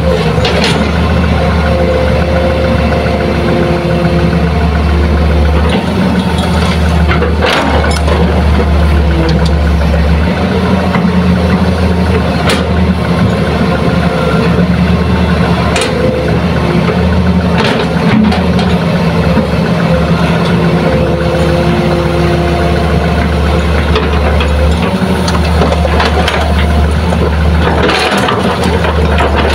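Hitachi hydraulic excavator's diesel engine running steadily as it digs and swings, its low hum swelling and easing several times. A few sharp knocks and clanks of the bucket and of soil and rock landing in the dump truck's steel bed, one near the end as a load is dumped.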